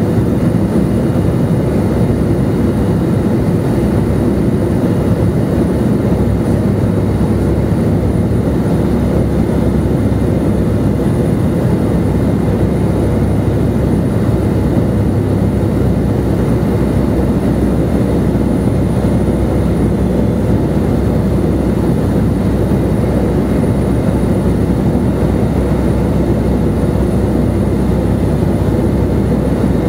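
De Havilland Beaver floatplane's engine and propeller droning steadily in flight, heard from inside the cabin.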